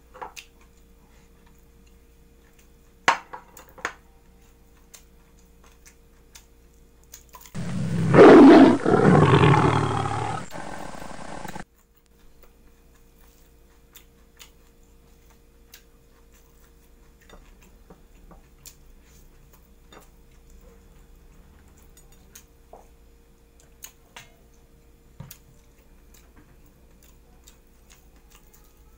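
Quiet eating sounds, faint clicks and smacks of chewing and of handling food with the hands, over a steady electrical hum. About seven and a half seconds in, a loud big-cat-like roar, an added sound effect, lasts about four seconds and cuts off abruptly.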